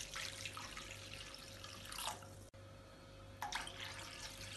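Water being poured from a vessel into a steel kadai of cooked-down tomato paste: a faint, steady splashing pour, broken briefly about halfway.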